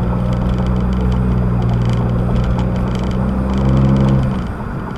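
Honda Accord Sport's 1.5-litre turbocharged four-cylinder with a catted downpipe, front pipe and resonator and muffler delete, heard from inside the closed cabin while driving in normal mode. The low exhaust note holds steady, swells a little, then drops away sharply about four seconds in.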